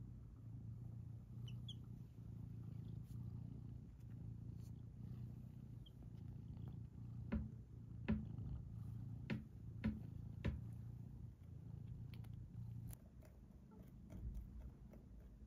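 Cat purring steadily up close, a low pulsing rumble that fades out near the end. Five or so sharp clicks sound over it between about seven and ten and a half seconds in.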